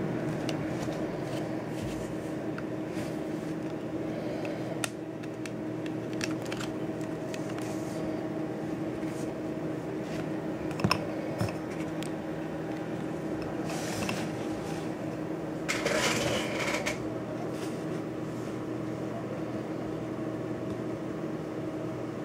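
A steady hum with scattered light clicks and taps from a smartphone being handled and tapped, and two short rustles past the middle.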